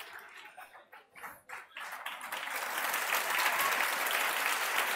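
Classroom audience clapping: a few scattered claps at first, then applause building to a steady clapping.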